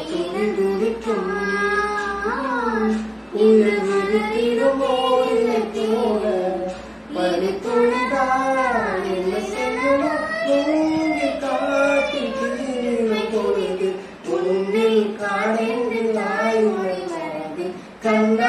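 A girl singing a slow melody solo, her voice gliding between notes in long phrases with short pauses for breath.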